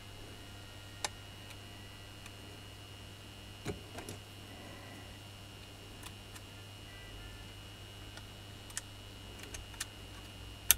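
Scattered small clicks and taps of a small screwdriver working inside the opened plastic handle housing of a Makita hammer, with the sharpest click near the end. A steady low hum and a faint high tone run underneath.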